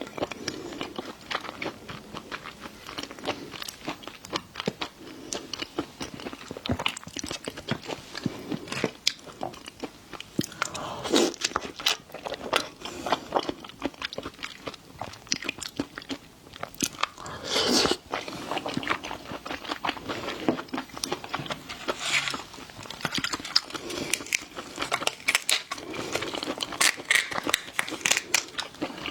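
Close-miked biting and chewing of seafood: a dense run of sharp mouth clicks and smacks, with louder bites about 11, 18 and 22 seconds in.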